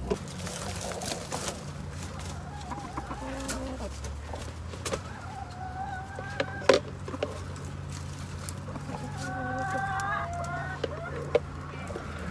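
Hens clucking, with several drawn-out calls of about a second each, over light clicks and knocks of handling; one sharper knock about halfway through.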